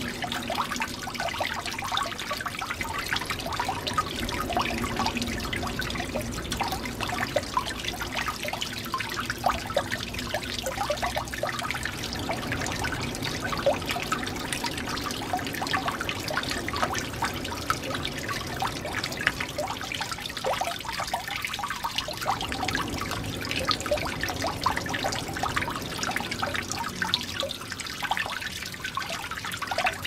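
Water dripping and trickling from a leaking pipe: many rapid, irregular drips over a steady trickle, sounding quite musical.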